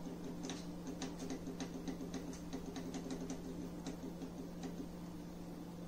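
Electric oven's touch control ticking rapidly, about four or five quick ticks a second, as the held up-arrow key steps the cook timer upward; the ticking stops a little before the end, over a steady low hum.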